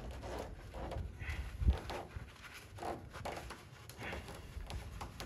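Light knocks and clicks of tools and parts being handled, with one louder low thump about a second and a half in.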